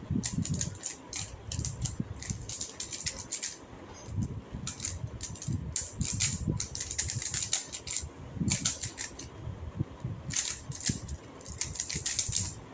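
Two 3x3 speed cubes being turned fast by hand: rapid, irregular plastic clicking and clacking of the layers, in quick flurries.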